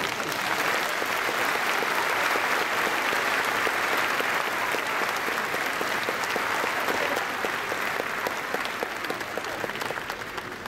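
Large arena audience applauding: dense clapping that thins out and grows quieter near the end.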